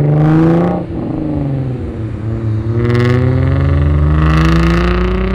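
A Genesis car accelerating hard away from the lot. The engine revs climb, break for a gear shift about a second in, then climb again through the next gear.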